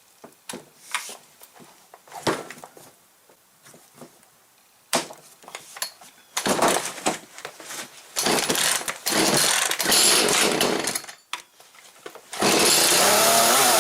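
Echo CS-310 two-stroke chainsaw being pull-started from cold: clicks and knocks of handling, then bursts of starter-rope pulling about six and eight seconds in, and about twelve seconds in the engine catches and runs steadily. It has just had its purge bulb replaced and fresh fuel added.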